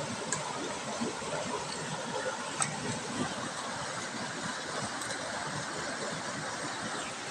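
Steady rushing background noise with a few faint clicks, about one every two seconds.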